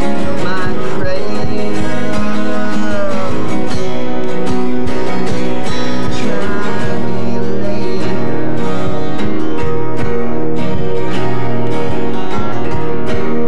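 Two acoustic guitars playing a song together, with a man singing over them in the first few seconds.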